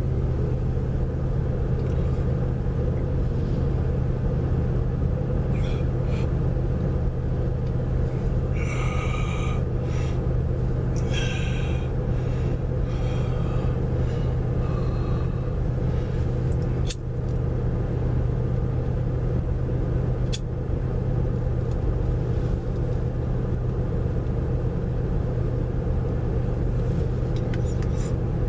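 A steady low rumbling hum from a running motor or engine. A few brief higher-pitched sounds come about nine to twelve seconds in, and two sharp clicks follow later.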